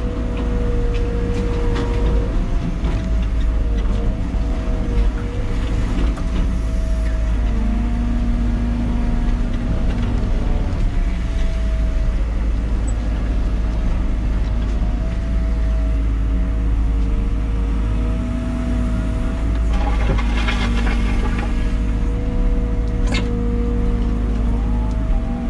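Liebherr 914 Compact wheeled excavator heard from inside the cab: the diesel engine running steadily with a high hydraulic whine that shifts a little in pitch as the boom and bucket work. A brief rushing noise comes about twenty seconds in, and a sharp click a few seconds later.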